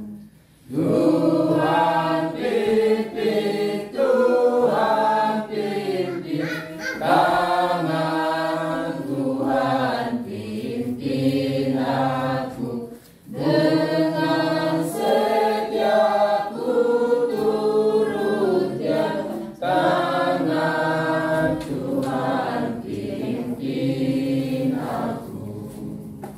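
A group of men's and women's voices singing a Christian hymn together without instruments, with a short pause for breath about halfway through.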